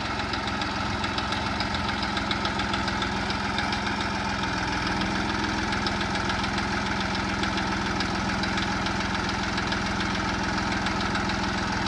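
TAFE 45 DI tractor's diesel engine running steadily with an even, rapid beat as it pulls a plough through the soil.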